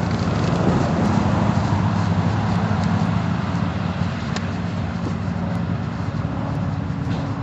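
A motorcycle engine running steadily with a low, even drone that eases slightly about halfway through.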